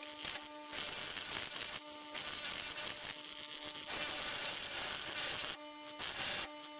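Drum sander running, its sanding band rasping against wood as the piece is pressed on in several passes. Short breaks in the rasping leave only the sander's steady motor hum.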